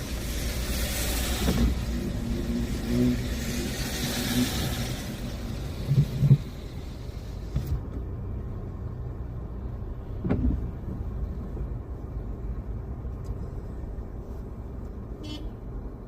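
Car running on a wet road in the rain, with a steady low engine rumble under the hiss of tyres and rain. The hiss cuts off abruptly about halfway through, leaving only the low rumble and a couple of sharp knocks.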